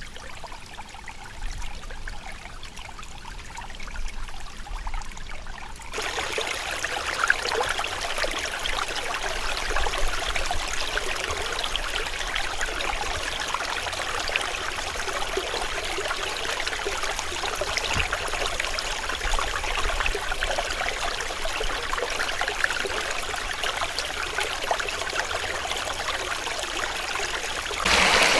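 Running water of a stream, trickling and splashing. About six seconds in it cuts abruptly to a louder, steady flow of water.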